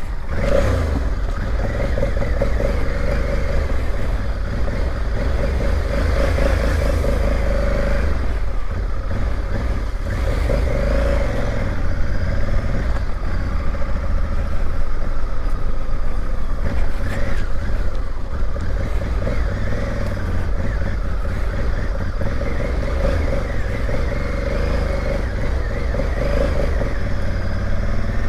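Honda Africa Twin's parallel-twin engine running while the motorcycle is ridden, its note rising and falling with the throttle over a steady low rumble.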